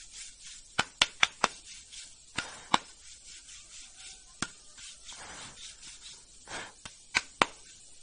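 A flat metal tool scraping and knocking against a brake drum as it is cleaned out: sharp metallic taps in irregular clusters, four quick ones at the start, a pair a little later, one in the middle and two close together near the end, with softer scraping between them.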